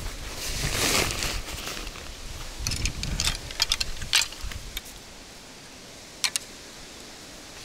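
Fishing rods being handled out of a fabric rod bag: the cloth rustles at first, then comes a run of light clicks and taps as the rod sections knock together, with a quick double click later on.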